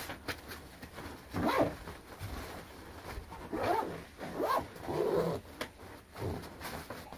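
A backpack's zipper being pulled in several quick strokes, each a short rasping zip that sweeps up in pitch, with rustling of the bag's fabric between strokes.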